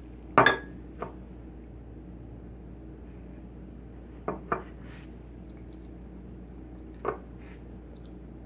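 Clinks and knocks against dishware: a loud double knock near the start, a fainter one about a second in, two quick knocks about four seconds in, and one more about seven seconds in.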